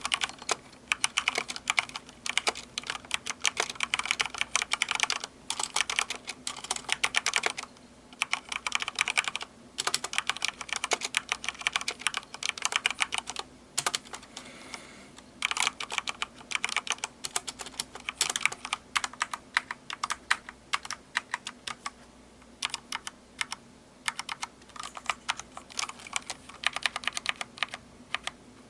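Typing on a Corsair K70 Rapidfire mechanical keyboard with Cherry MX Speed switches: fast, dense runs of key clacks, with short pauses between bursts.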